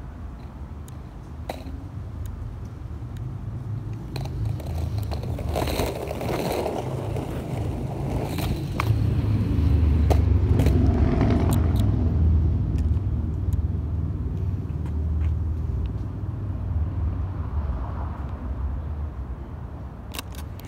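Skateboard wheels rolling over rough, cracked asphalt: a steady low rumble that grows louder about halfway through, with scattered small clicks.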